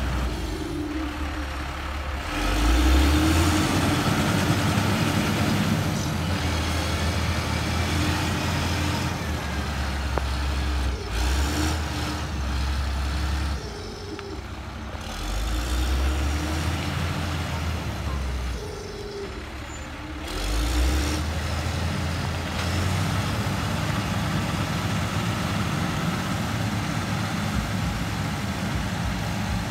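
Motor grader's diesel engine running under load as it works a muddy dirt road, swelling in a few louder surges, about three seconds in, mid-way and again around twenty seconds.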